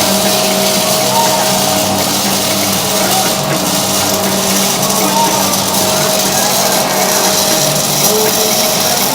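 Background music, rock-like, playing at a steady level.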